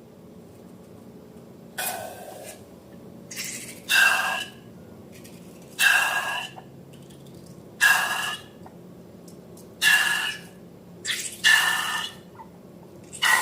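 Slime being squeezed and kneaded by hand, squelching in short wet bursts about every two seconds.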